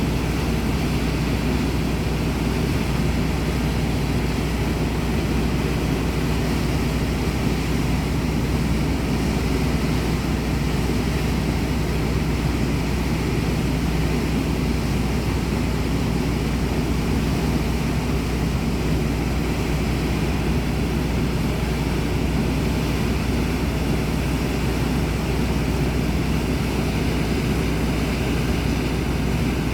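Swollen river rushing through a rock gorge during an ice break-up, a steady low rush of water that stays even throughout.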